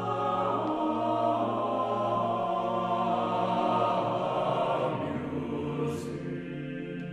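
Unaccompanied SATB mixed choir singing held chords on the word "Music!", swelling and then easing off softer, with a brief hiss near the end.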